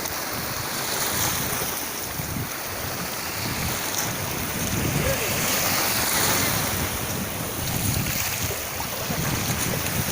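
Sea surf washing onto a beach, with wind blowing across the microphone: a steady rush of noise that swells a little midway and eases again.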